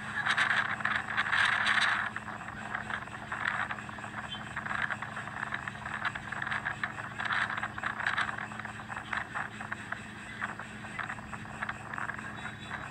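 Storm waves breaking over a seawall and rushing across a flooded road: a rough, crackling rush that surges loudest in the first two seconds and again around seven to eight seconds in.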